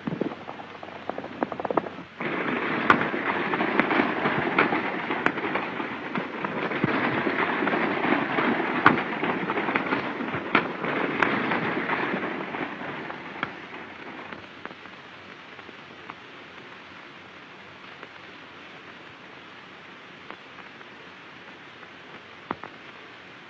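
Old film soundtrack with a dense clatter that sets in suddenly about two seconds in, scattered with sharp cracks. It fades out after about ten seconds, leaving a steady hiss.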